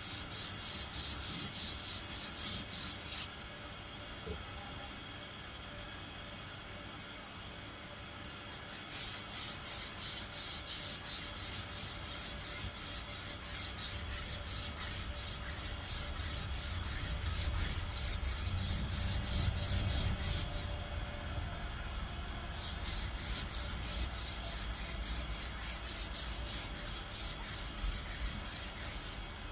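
Back-and-forth scraping strokes, about three a second, in three runs with short pauses between, like a file or abrasive worked over a part.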